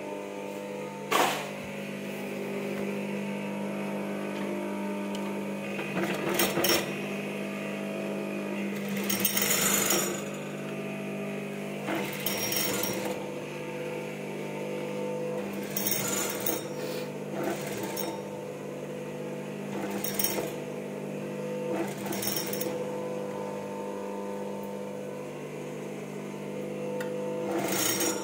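Siruba industrial sewing machine, its motor humming steadily, with short bursts of stitching every few seconds as fabric is fed under the needle.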